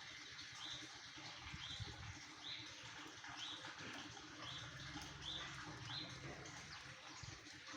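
Small birds chirping, short high calls repeated about once a second over a faint steady hiss.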